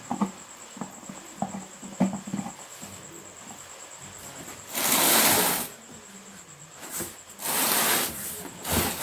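Packaging rustling in two bursts of about a second each, with small knocks and clicks as the wet grinder's parts are handled during unboxing.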